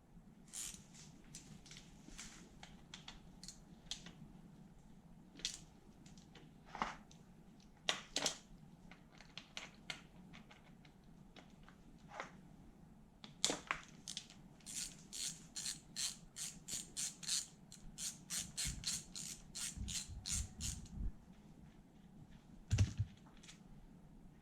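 Hand tools and small metal engine parts clicking and clinking as a Honda NSR50 engine is taken apart, with a steady run of about three clicks a second for several seconds and a few dull knocks on the bench near the end.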